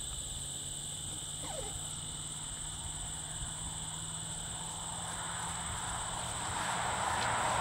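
Insects chirring steadily in a grassy field, two even high-pitched tones running without a break, over a faint low hum. A rushing noise swells louder over the last two seconds.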